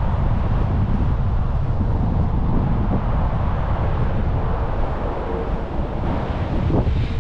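Wind buffeting the microphone: a loud, unsteady low rumble with no break.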